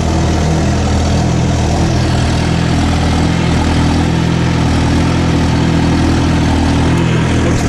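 Diesel engine of a logging machine running steadily at a constant speed, heard from its open, mesh-caged operator's cab while the machine travels.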